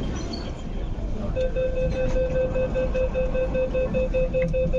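MTR train door-closing warning: a rapid, evenly repeating beep of one pitch, about five a second, starting about a second and a half in over the hubbub of passengers boarding.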